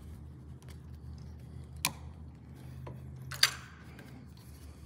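Two sharp metallic clicks from hand tools and a small spring being worked into the blower drive housing of a Detroit Diesel 8V92TA, the second louder with a brief ring, over a steady low hum.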